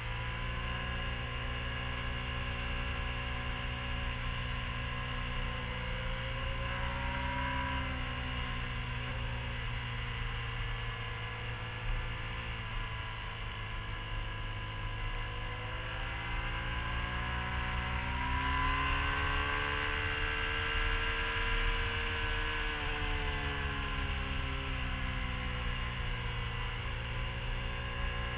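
Motorcycle engine running at road speed, its pitch rising and falling as the throttle is opened and closed through a run of bends, over a steady low drone.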